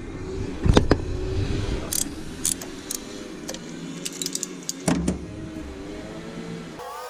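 Scattered metallic clicks and clinks of hand tools and fasteners in an engine bay, irregular, with the loudest knocks about a second in and about five seconds in.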